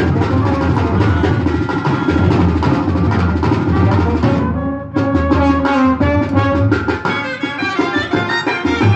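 Indian brass band playing a melody on euphoniums, trumpets and clarinet over drums. About halfway through the playing briefly thins out, then picks up again with clearer held melody notes.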